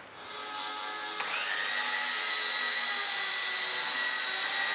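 Electric power tool starting up and running steadily. Its high motor whine climbs about a second in, then holds level.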